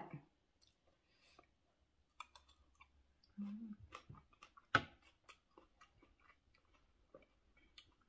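A person chewing a mouthful of spicy raw seafood salad: soft wet clicks and smacks of the mouth, a short hummed "mm" about three and a half seconds in, and one sharper click near five seconds.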